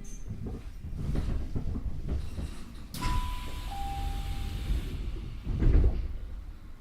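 Tokyu 5050-series train standing at a station: the doors slide open with a sudden rush of noise and a two-note falling chime, then a loud low knock near the end.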